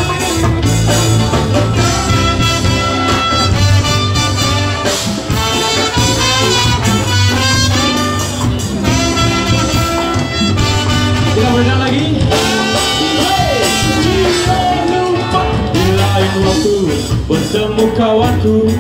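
A ska band playing live through a PA: a horn section over electric guitar, bass and a drum kit, with a steady driving beat.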